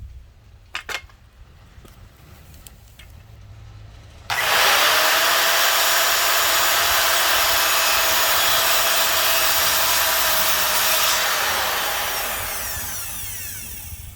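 Electric power saw switched on about four seconds in, its motor rising to full speed, running steadily for about seven seconds, then switched off and winding down. A few light knocks come before it.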